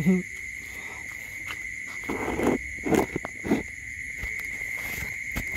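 Steady, high-pitched insect chirring, like a cricket chorus. A short low sound comes right at the start, and a few brief rustling knocks fall about two to three and a half seconds in.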